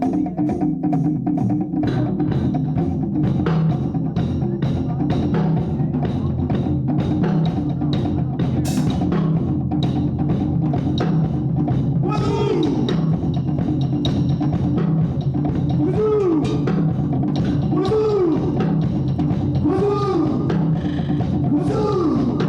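A rock band playing during a sound check: drum kit keeping a steady beat over sustained low notes. From about halfway, a pitched swoop that rises and falls comes in and repeats about every two seconds.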